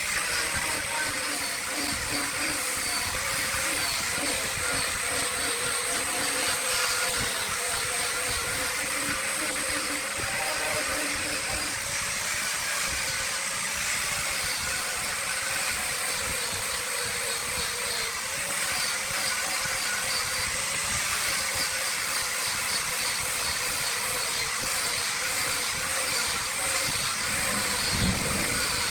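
Wood lathe running steadily with a continuous hiss as the spinning wood is worked, a faint steady whine under it.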